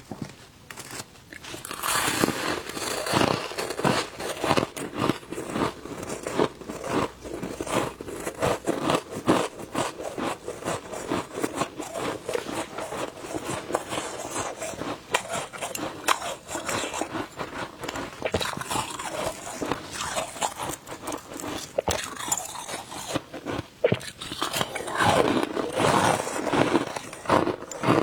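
Shaved ice being bitten and chewed close up, a dense, continuous run of crunches and crackles, heaviest a couple of seconds in and again near the end.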